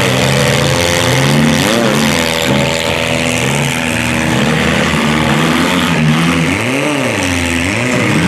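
Engines of several demolition derby compact cars running loud, revving up and back down a few times, most clearly about two seconds in and again near the end.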